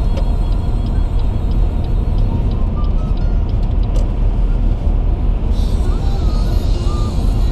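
Steady road noise inside a car cruising at highway speed: a constant deep rumble of tyres and engine.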